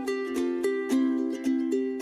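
Background music: a light plucked-string melody, notes struck every fraction of a second.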